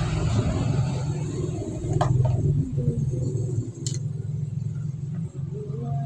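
Electric blender motor running with a steady low rumble, with a couple of sharp clicks about two and four seconds in.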